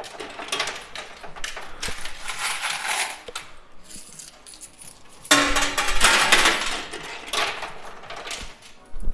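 Coins clattering in a coin pusher arcade machine as they are shoved along the shelf and tumble over the edge. A bigger cascade starts suddenly about five seconds in and is the loudest part.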